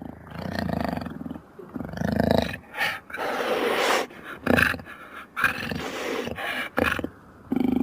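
Jaguar growling and snarling in a series of short, rough bursts, with a longer hissing snarl about three seconds in.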